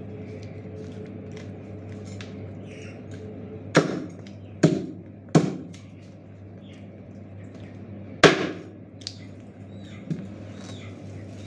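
Meat cleaver chopping raw chicken against a plastic cutting board: three sharp chops about a second apart, a fourth and loudest one a few seconds later, then two lighter knocks near the end, over a steady low hum.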